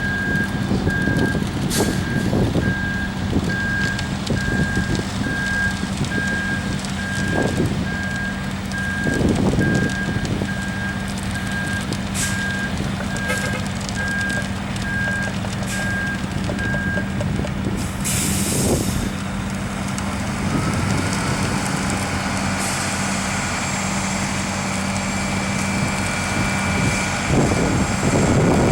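Ready-mix concrete mixer truck backing up: its reversing alarm beeps in a steady, evenly spaced pattern over the running diesel engine, then stops about 17 seconds in. A second later there is a short hiss of air brakes, and the engine keeps running.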